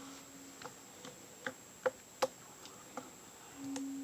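Homemade glue-and-borax slime being kneaded by hand, giving short, sharp clicks and pops at an irregular pace, about seven of them, as it sticks and pulls off the fingers and table. A faint low steady hum dies away early on and returns near the end.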